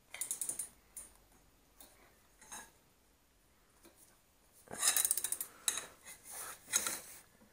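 Metal tools clinking and rattling against a motorcycle engine as a strap wrench is worked into place to hold the magneto. A few scattered clinks come first, then a dense run of rattling clinks starts about five seconds in and lasts a couple of seconds.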